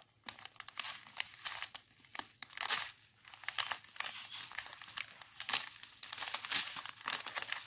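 A strip of clear plastic bags full of round diamond painting drills crinkling as it is handled and turned in the hands: irregular crackles of thin plastic, with the small resin beads shifting inside the bags.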